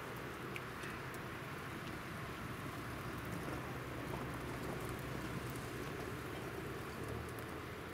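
Hot water pouring from a kettle into a small metal cup, a steady splashing trickle, over a few faint crackles from the wood fire.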